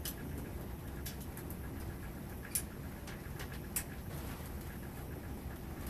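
Small sharp clicks of plastic sap-line tubing and tap fittings being worked together with a hand tool, two louder clicks in the middle, over a low steady hum.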